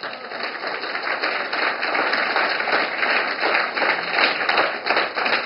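Audience applauding, many hands clapping in a dense, even stream.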